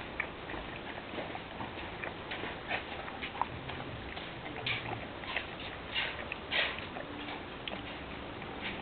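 A dog chewing and sucking on a mango, making soft, irregular smacking clicks.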